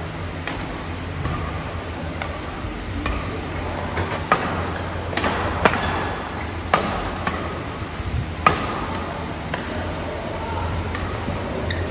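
Badminton rackets hitting a shuttlecock back and forth in a doubles rally: a dozen or so sharp hits, spaced irregularly, over a steady low hum.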